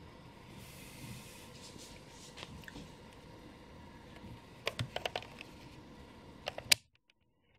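Light clicking and handling noise: a cluster of small sharp clicks about five seconds in, and two louder clicks near the end, after which the sound cuts out abruptly.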